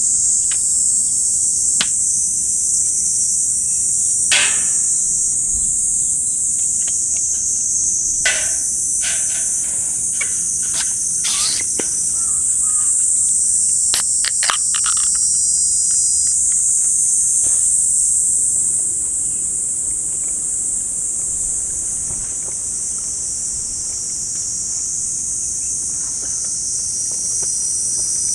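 Steady high-pitched chorus of summer insects, with a scattering of knocks and clicks of handled gear in the first half.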